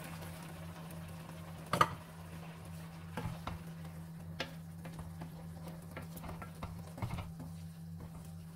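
Wooden spatula stirring rice and stock in an enamelled pan, with scattered small scrapes and knocks against the pan and a light sizzle. There is one sharp knock about two seconds in, over a steady low hum.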